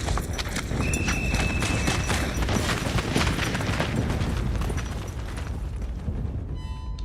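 Film sound effects: a dense low rumble full of sharp cracks and knocks, with a steady high ringing tone for a couple of seconds early on, fading out near the end.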